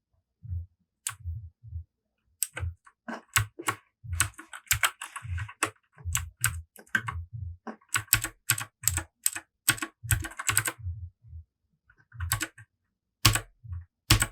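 Royal Kludge RK100 mechanical keyboard with clicky Gateron Blue switches: keys pressed irregularly, each press a sharp loud click, sometimes singly and sometimes in quick runs.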